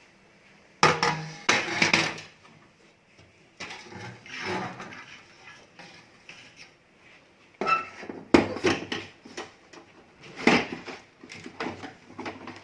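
Irregular knocks, bumps and clattering, as of objects being handled and set down, in bunches with quieter gaps between.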